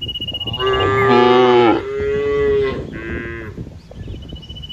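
Cattle mooing: three long moos in quick succession, starting about half a second in and ending about three and a half seconds in.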